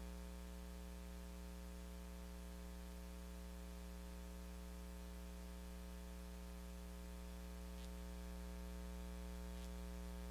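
Steady electrical hum with a stack of overtones over a faint hiss, the kind of mains hum picked up by a sound system's microphone feed, with two faint ticks in the last few seconds.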